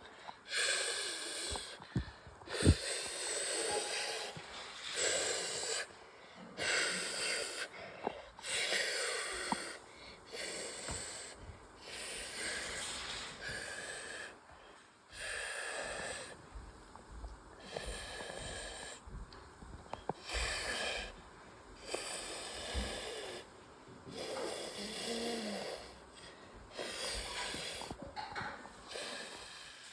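Wheezing, snore-like breaths repeated over and over, each a short hissy rasp, coming irregularly about once every second or so.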